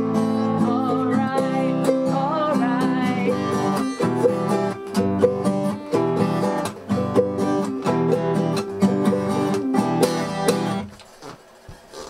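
An acoustic guitar and a smaller stringed instrument strum and pick a folk-style song together. The playing stops about eleven seconds in, leaving a few faint knocks.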